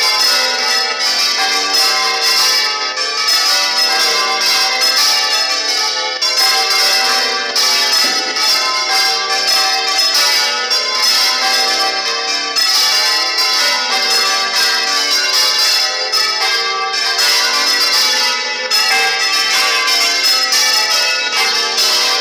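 Several Spanish church bells swung full circle on counterweighted yokes in a general peal (volteo general), clanging over and over in a dense, unbroken stream of overlapping strikes. One of the bells is swung by hand with a rope.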